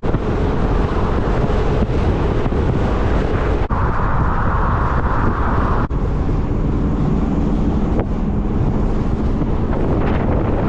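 Steady wind buffeting the microphone over the rumble of a vehicle driving, with a few brief dips and a stretch of extra hiss in the middle.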